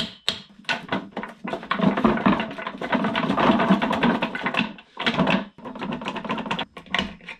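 Rapid metallic clicking and rattling from hand tools and metal parts, as a tight part is worked loose on an Audi 01E six-speed transmission. Single sharp clicks at the start give way to a long dense run of clicking from about a second and a half in.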